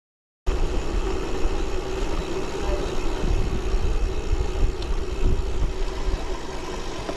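Wind buffeting the microphone and tyre noise of a road bike rolling along a towpath, a steady rumble with a faint even hum in it, cutting in about half a second in.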